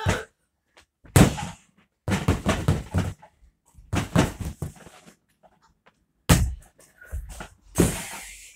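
Fists punching an inflatable punching bag: several loud thuds and slaps in irregular clusters, with short quiet gaps between them.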